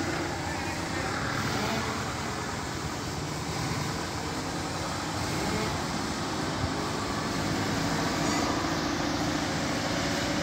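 A truck's engine running steadily.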